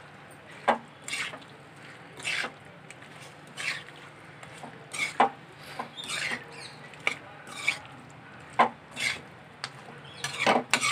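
A spoon stirring and scraping chicken pieces in thick masala around a steel kadai, mixing in garam masala. Irregular scrapes come about once a second over a steady low hum.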